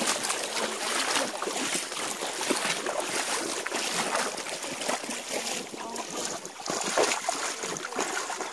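Feet wading through a shallow, rocky stream, splashing irregularly step after step over the rush of the flowing water.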